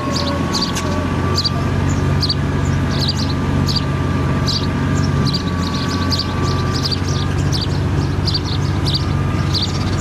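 A steady mechanical hum with a constant whine, with short high chirps repeating several times a second over it.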